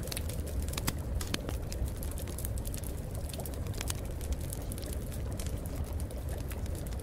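Running water: a steady low rush with many irregular small drips and splashes.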